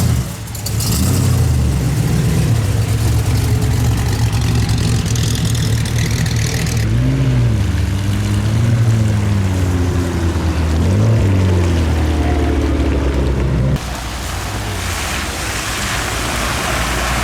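A car engine running, with several short revs in the middle that rise and fall in pitch; the sound changes abruptly to a quieter engine near the end.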